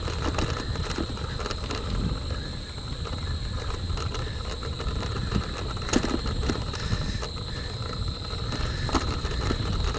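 Wind rumbling on the microphone of a moving bicycle, under a steady high-pitched drone of evening insects, with scattered faint clicks.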